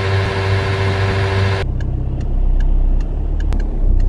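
A steady mechanical hum with a held whining tone cuts off about a second and a half in. It gives way to the deep low rumble of a car moving in slow traffic, heard from inside the car, with faint scattered ticks.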